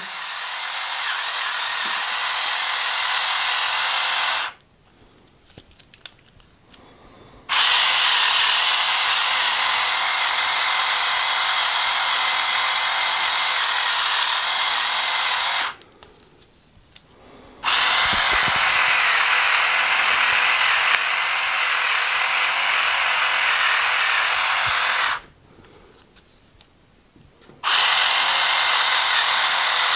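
Battery-operated Flafster electric pepper grinder's motor running and grinding peppercorns on a coarse setting: a steady high whirring grind in four runs of several seconds, stopping three times for two or three seconds.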